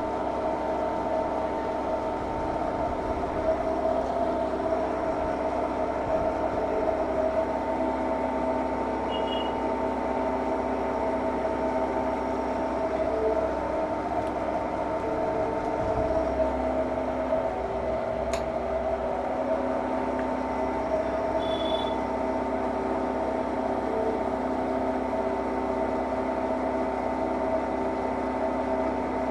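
A machine tool runs steadily during aluminum machining: an even mechanical hum with several steady tones, and a single light click about 18 seconds in.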